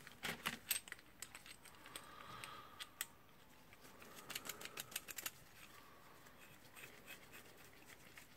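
Faint scattered clicks and light metal clinks as a bearing puller is handled and fitted onto a cordless drill motor to pull its armature ball bearing.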